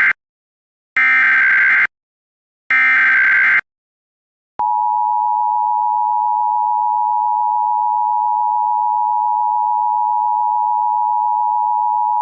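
Emergency Alert System SAME header: the tail of one harsh digital data burst, then two more identical bursts of about a second each, a second apart. About a second after the last burst, the steady two-tone EAS attention signal starts and holds. This header opens a Child Abduction Emergency (Amber Alert) activation.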